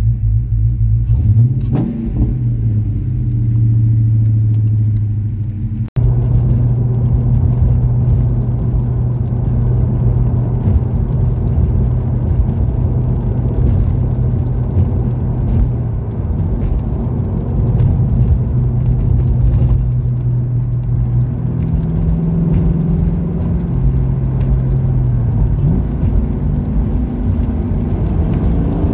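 A 1996 Ford Mustang GT's V8, fitted with cams, shorty headers and a Magnaflow H-pipe exhaust, heard from inside the cabin: running and revving briefly at first, then after a sudden cut a steady drone under way on the road. Near the end the pitch rises and falls a couple of times as the engine is worked through the gears.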